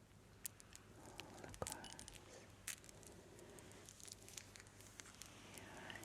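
Quiet, close-miked ASMR crackling: scattered soft crackles and sharp little clicks at an uneven pace, with a faint soft hiss between them.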